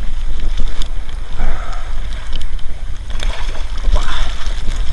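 Storm wind buffeting the microphone: a loud, steady low rumble of wind noise.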